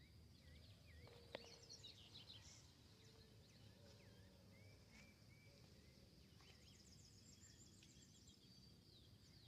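Faint outdoor ambience: scattered short bird chirps and calls over a steady high thin tone, with one sharp click about a second and a half in.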